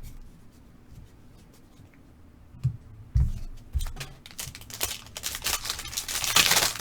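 Two soft knocks, then crinkling and tearing of a foil trading-card pack being opened by hand, with a rustle of cards, loudest near the end.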